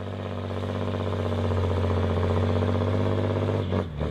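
An engine running with a steady low drone, growing louder over the first couple of seconds and cutting off just before the end.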